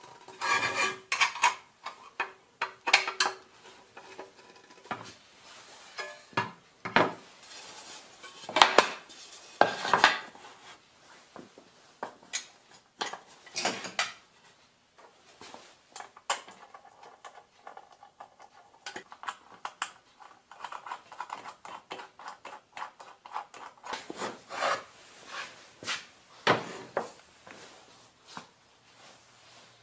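Metal router-table fence and its fence faces being handled and fitted together: irregular clinks, clacks and knocks of metal and wood parts, with short scraping slides between them.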